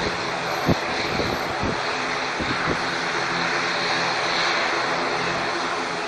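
A steady aircraft engine drone with wind noise on the microphone, a few short gusts about a second in.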